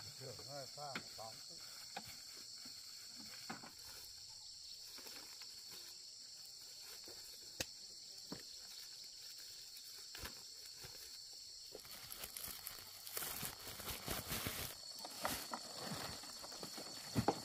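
Steady high-pitched insect chorus with scattered faint clicks of corn cobs dropping into a sack. About twelve seconds in, louder crackling and rustling of dry corn stalks and woven plastic sacks being handled and trodden on.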